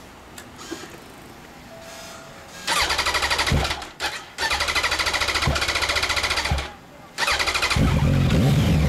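2015 Yamaha YZF-R1 crossplane inline-four being started. The electric starter cranks in two tries, starting about three seconds in, before the engine catches near the end and settles into a steady, loud run.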